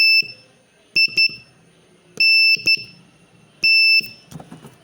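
Morse code practice tone, a steady high-pitched beep keyed on and off, sending the word "MINT": the end of a dash, then two short dits, then a dash and a dit, then one long dash.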